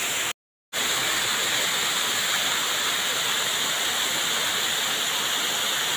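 A small waterfall: thin streams of water sliding and splashing down a sloping rock face, a steady rushing hiss. The sound cuts out completely for a moment about half a second in, then resumes unchanged.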